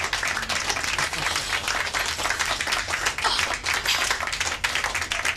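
Applause from a small group of people, many hands clapping at once without a break.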